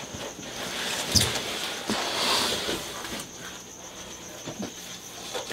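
A cardboard shipping box being opened and a large python hook pulled out of it: rustling and scraping of cardboard, with a sharp knock about a second in and a few lighter knocks later.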